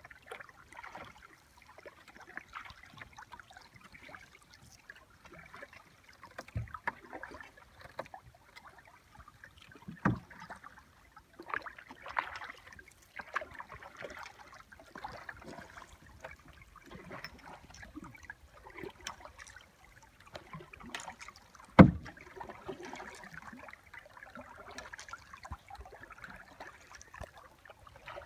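Kayak paddle strokes: the blades dip, splash and drip in the water over and over. A few sharp knocks cut through, the loudest about three-quarters of the way through.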